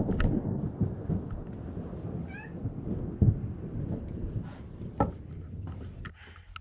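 A cat meowing briefly about two seconds in and again near the end, over low rumbling noise with a couple of sharp knocks.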